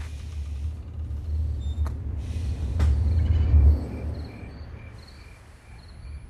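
A low rumble that swells to its loudest a little past halfway and then dies down. Through the second half a cricket chirps at an even pace, a few short chirps a second.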